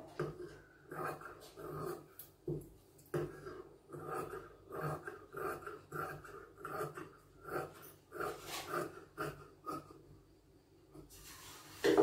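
Tailor's scissors cutting through cloth, a run of snipping strokes about two a second with a short pause near the end. A louder knock or clatter comes at the very end.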